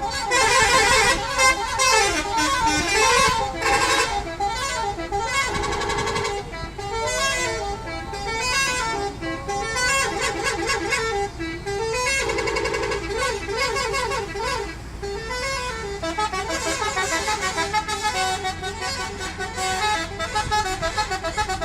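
Indonesian bus 'telolet' horns, multi-tone musical air horns, playing rapid up-and-down melodies over and over without a break, as in a horn battle between several coaches.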